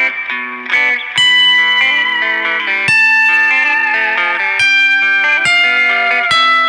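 Instrumental background music led by a guitar with effects, playing a melody of plucked and held notes over a steady accompaniment.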